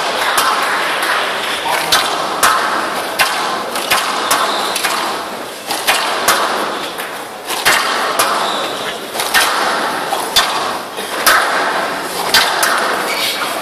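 Squash rally on a glass court: the ball cracking off rackets and the walls in a run of sharp knocks, roughly one every half second to second and a half.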